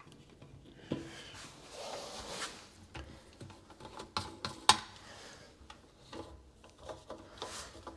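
Scattered light clicks, taps and rustles of hands handling a sink drain assembly and its packaging, with one sharper click near the middle.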